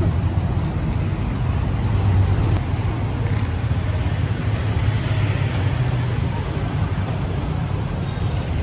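Steady low engine hum with a rumble of street noise, even in level and unchanging.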